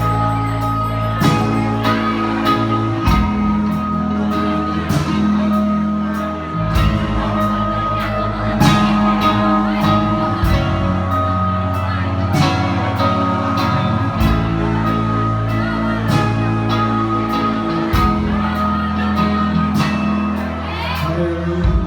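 A live band playing a pop song, with bass and chords held under a steady drum beat, singing over it and crowd voices now and then.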